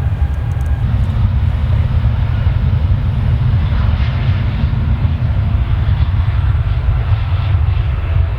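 Wind buffeting the microphone as a steady, loud low rumble, with faint jet airliner engine noise underneath.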